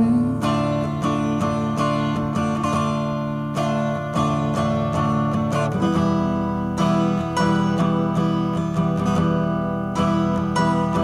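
Acoustic guitar playing an instrumental passage: chords picked and strummed in a steady rhythm, shifting to a new chord about six seconds in.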